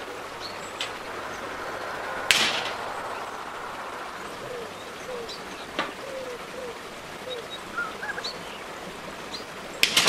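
Birds calling in the background, short low gliding notes and higher chirps, over a steady faint hiss. A sharp click about two seconds in, and another sharp click near the end as side cutters snip the copper wire.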